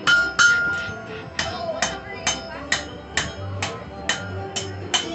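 Blacksmith's hammer striking a red-hot horseshoe blank on an anvil, about two blows a second, each blow with a short bright ring from the anvil: hand-forging a horseshoe.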